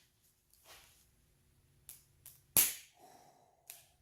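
Handgun firing a primed, powderless cartridge case stuffed with Peeps marshmallow candy: two light clicks, then one sharp primer pop about two and a half seconds in, with another short click near the end.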